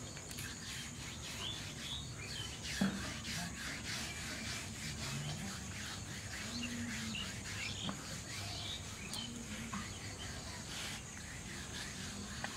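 Small birds chirping on and off, over soft rubbing of a hand rolling rice-flour dough into a thin strand on a stone slab. A light knock about three seconds in, and a fainter one near eight seconds.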